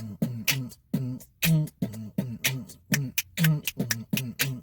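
Intro jingle made of a beatboxed rhythm: short vocal bass hits and sharp clicks in a steady, repeating pattern.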